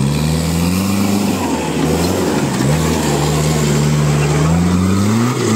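Mahindra jeep's diesel engine revving hard under load as it climbs a steep mud slope. The revs rise, dip about two seconds in, climb steadily again, and drop near the end.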